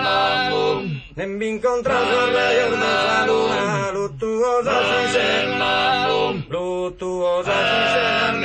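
Soundtrack music: a slow song of male singing in long held, chant-like notes, with short breaks between phrases, over a steady low drone.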